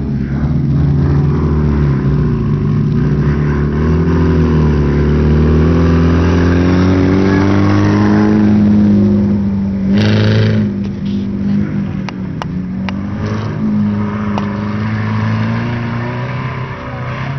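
Several hatchback race car engines revving as the cars lap the track, the pitch climbing and falling with the throttle and building to its loudest about eight seconds in. About ten seconds in comes a short burst of noise, followed by a few sharp clicks.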